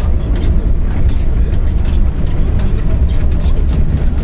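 Mercedes-Benz OF-1722M bus under way: a steady low growl from its diesel drivetrain, with the driveshaft growling ('cardã roncando'). Frequent light rattles come through over it.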